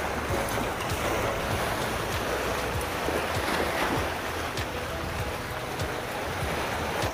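Steady wind on the microphone over sea surf washing against the shore.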